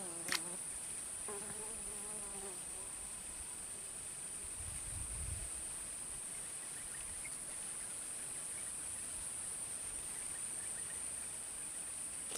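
Steady, high-pitched insect drone, one unbroken tone held throughout. A single short click sounds just after the start.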